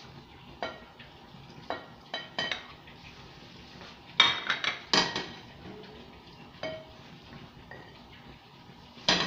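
Dishes and cutlery clinking as a table is set: scattered light clinks, with a louder cluster of ringing knocks about four to five seconds in and another just before the end.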